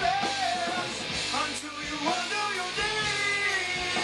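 Stoner rock track playing through the control-room monitors: a man singing a wavering melody over guitar and steady drum hits.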